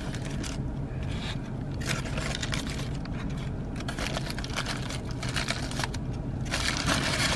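Aluminium foil burger wrapper being crinkled and rustled by hand as it is peeled open, in irregular crackling bursts.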